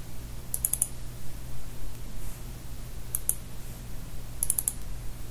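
Computer mouse buttons clicking in three quick clusters, about half a second, three seconds and four and a half seconds in, over a steady low electrical hum.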